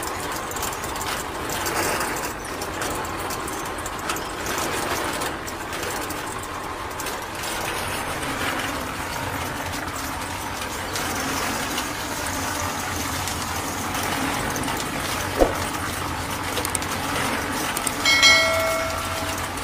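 Small electric motor and crank driving a miniature shaking sieve, its trays rattling steadily as rice grains and sand pour through. Near the end a short ringing tone sounds over it.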